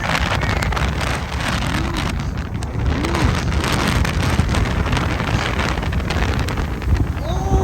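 Strong wind buffeting the microphone, a loud steady rumble and rustle with gusty crackles. A few faint short pitched calls or cries rise and fall under it.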